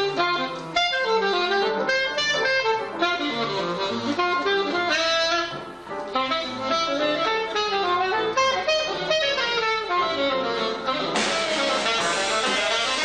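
Live small jazz band, with an alto saxophone playing a quick, winding solo line over the band.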